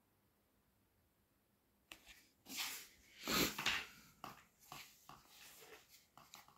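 Close rustling and scraping as a foam model glider and the phone filming it are handled, with two louder rubbing noises a little after two seconds in and lighter scrapes and clicks after them.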